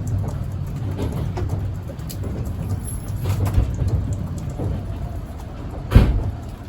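Tokaido Shinkansen train running, heard from inside the passenger car: a steady low rumble with scattered light clicks, and one sharp knock about six seconds in.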